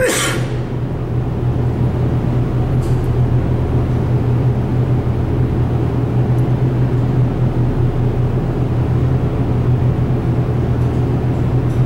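Boat engine droning steadily at an even pitch, heard from on board, with a short rushing noise right at the start.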